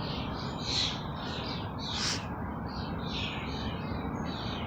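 A group of medium-sized black birds giving many short, harsh, overlapping calls and a weird rolling call, several a second, one sharper call about two seconds in.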